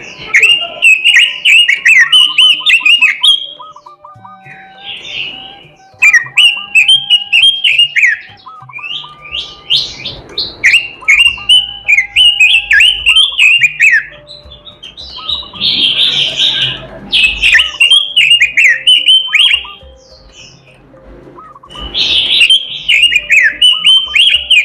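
Pekin robin (red-billed leiothrix) singing loud, fast warbling song phrases in five bouts of a few seconds each, with short pauses between.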